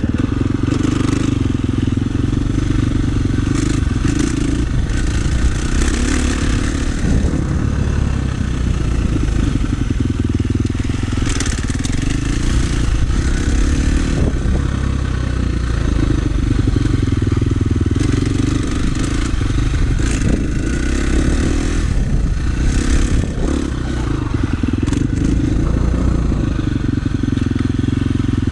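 KTM 350 SX-F's single-cylinder four-stroke engine running under a varying throttle as the bike rides a dirt motocross track, its pitch rising and falling. Short clatters of dirt and stones come from under the tyres.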